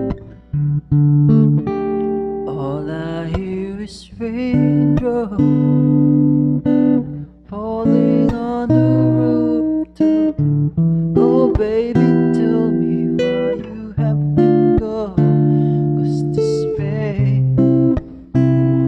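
A man sings to a strummed acoustic guitar, recorded close up through a BM-800 condenser microphone.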